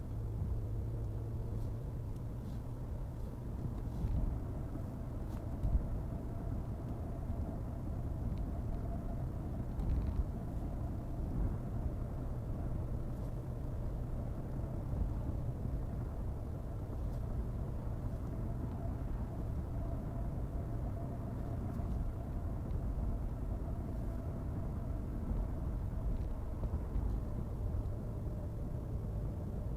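A car driving at a steady speed, its engine and tyre noise forming a continuous low rumble with a faint steady hum.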